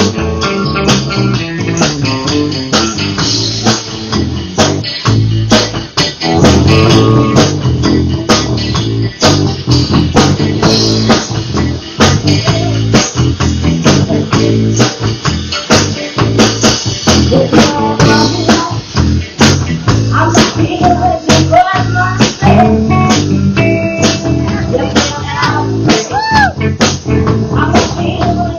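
Live band playing: electric guitar and bass over a drum kit keeping a steady beat.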